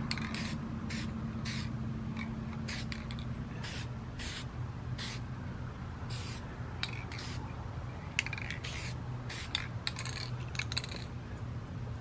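Aerosol spray-paint can sprayed in many short bursts of hiss, each a fraction of a second, over a steady low hum, with a few sharp clicks in the second half.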